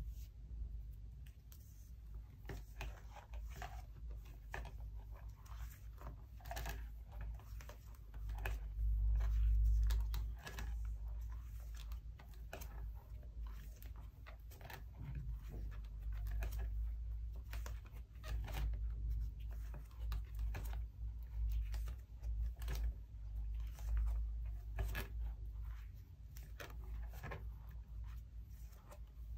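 Clear plastic nine-pocket photocard sleeves in a ring binder crinkling and rustling as the pages are handled and turned, with many small clicks and taps on the plastic. A low rumble of handling runs underneath, loudest about a third of the way in.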